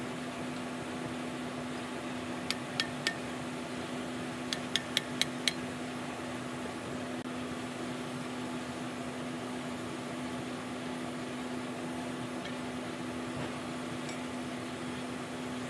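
Hammer striking a steel punch against a wheel loader's steel wheel hub: three sharp metallic taps about two and a half seconds in, then five quicker ones a couple of seconds later. A steady low hum runs under it throughout.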